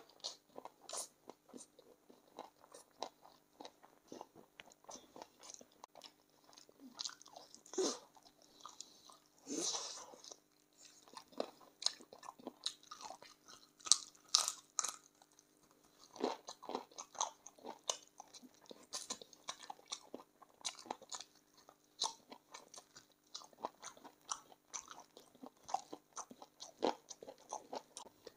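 A person chewing and crunching on spicy chicken feet, with frequent short, irregular bites and crunches.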